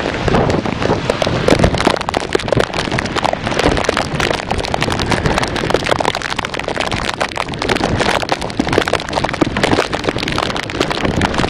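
Hurricane wind and driving rain, a loud, constant rushing noise full of crackling hits and low rumbling buffets on the microphone.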